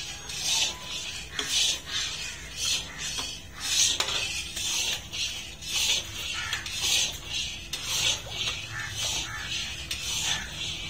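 Long metal stirring rod sloshing and scraping through raw milk, sugar and flour in a large iron karahi, in a steady rhythm of about two strokes a second. The mixture is being stirred so that the sugar and flour dissolve.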